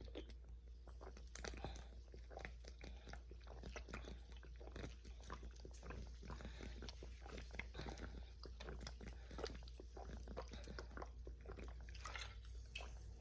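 Faint gulping of Perrier sparkling water being chugged, heard as an irregular run of small wet clicks from swallowing and fizz.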